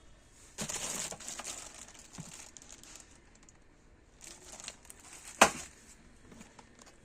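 Packaging crinkling as it is handled, in a burst near the start and again later, with one sharp click about five and a half seconds in.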